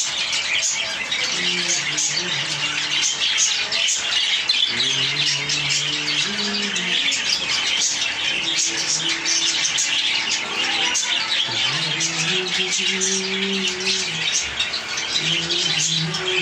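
Many caged budgerigars and cockatiels chattering, chirping and squawking at once, a dense, continuous twittering. Underneath, several low, pitched drones come and go.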